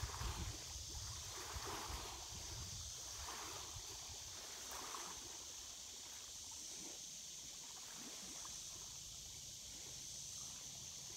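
Faint outdoor ambience: soft water lapping, heard as a few gentle splashes in the first five seconds, over a low wind rumble and a steady high hiss.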